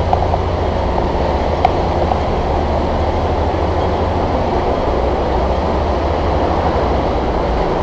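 Steady low rumble of a moving vehicle heard from inside, with a few faint clicks and no change in pace.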